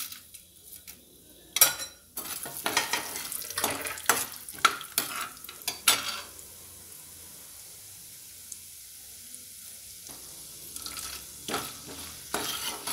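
Peanuts, chana dal and urad dal frying in hot oil in an aluminium kadai, stirred with a perforated steel ladle that scrapes and knocks against the pan in a quick run of strokes. Then a steady sizzle for a few seconds, and more stirring near the end.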